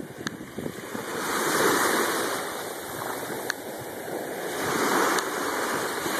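Small waves lapping and washing in the shallows of a calm sea at a sandy beach, the wash swelling and easing twice.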